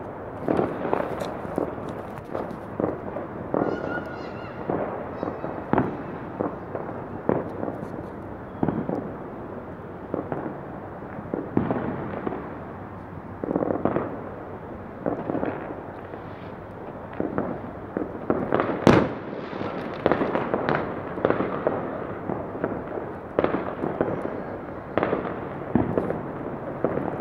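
Fireworks and firecrackers going off all around, an irregular string of bangs and crackles with no pause, the loudest bang about two-thirds of the way through.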